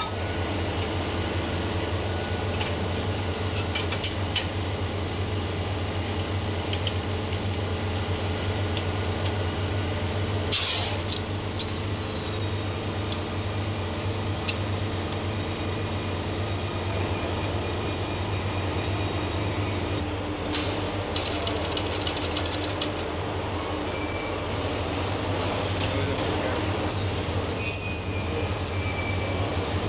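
Diesel locomotive idling with a steady low hum while it is coupled to the coaches. Over it come a few sharp metallic knocks about 4 seconds in, a short loud burst of noise about 10 seconds in, a run of rapid clicks a little past 20 seconds, and a brief high squeal near the end.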